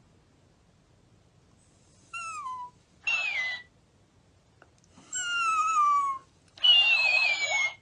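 A Shiba Inu gives high, falling whines twice, and each one is echoed back a moment later by a mimicking talking plush toy, which repeats it higher-pitched and hissy.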